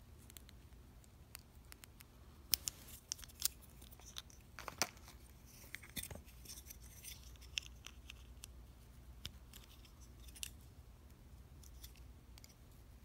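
Small plastic clicks and scrapes of a LEGO minifigure being handled as its snap-on armor piece is worked off the torso, with a cluster of sharp clicks a few seconds in and lighter ticks after.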